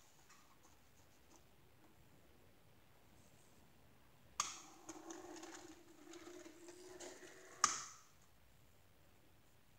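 A small electric motor on an HOn30 model railway hums and whirs for about three seconds. It starts with a sharp click and stops with another sharp click.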